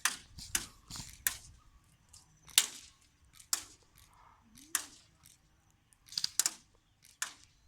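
Airsoft guns firing single shots: sharp cracks at irregular intervals, about eleven in all, with a quick burst of three about six seconds in.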